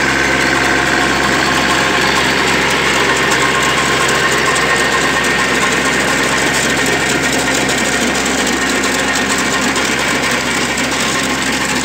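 Kubota A211N compact tractor's three-cylinder diesel engine running steadily under load as its rotary weeder and ridger churns through soil.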